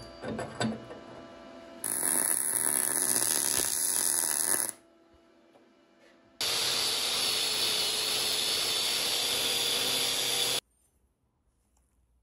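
Electric welding arc on a small steel boiler cylinder, giving a steady buzzing hiss in two stretches of about three and four seconds, each starting and stopping abruptly. A few light metal clicks of parts being handled come first.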